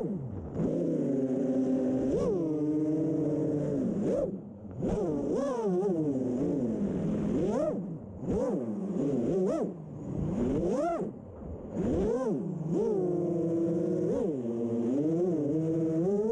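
A 6-inch FPV freestyle quadcopter's Emax 2207 brushless motors and props whining, the pitch rising and falling sharply again and again with throttle punches and chops. The sound drops for a moment several times when the throttle is cut.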